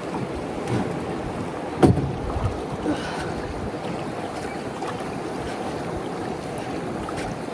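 Steady wind and moving river water around a floating boat, with one sharp knock about two seconds in and a couple of fainter knocks around it.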